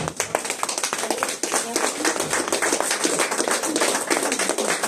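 Audience applauding, breaking out suddenly into a dense run of claps.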